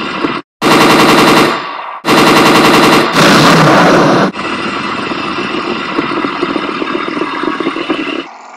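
Machine-gun fire sound effect: three loud rapid-fire bursts in the first four seconds, then a quieter, steady rattle of gunfire that drops away near the end.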